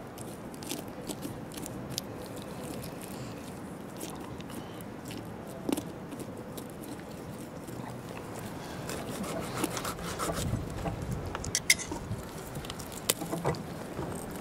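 A knife cutting and cracking through a bobcat's ribs: scattered crunching snaps and scraping clicks as the rib cage is forced open, busier and louder in the second half, with one sharp snap near the end.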